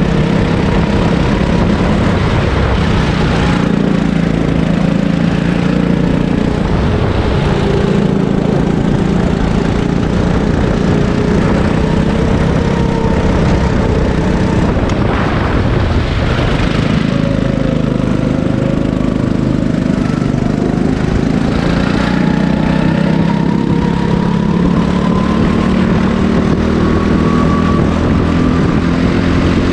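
Sodi hire kart's engine running flat out on track, its pitch rising and falling as the kart accelerates out of corners and slows into them.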